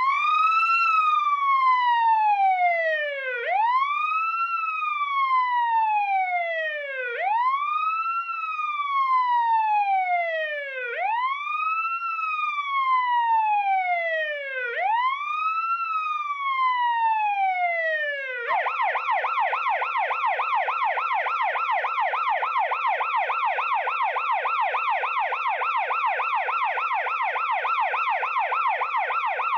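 Police siren sounding a slow wail, rising and falling about once every four seconds, then switching suddenly to a rapid yelp about two-thirds of the way in.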